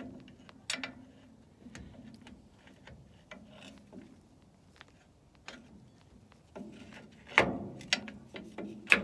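Scattered clicks and knocks of drum brake parts and springs being handled and fitted by hand, with a louder clatter of several knocks near the end.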